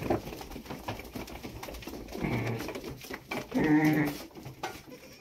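Animals calling in a stable: a low, wavering call about two seconds in and a louder one near four seconds, over light rustling.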